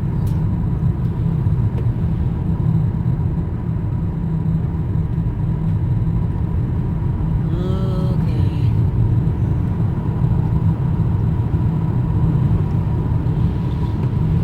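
Car cabin road noise while driving: a steady low rumble of tyres and engine, with a brief faint pitched sound about eight seconds in.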